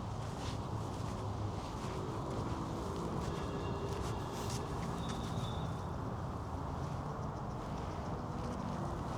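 Park ambience: a steady low hum of distant city traffic, with footsteps and a few faint high bird chirps around the middle.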